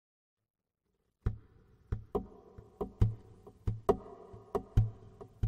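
Silence, then an instrumental music track on acoustic guitar begins about a second in, with sharp plucked and strummed strokes ringing on.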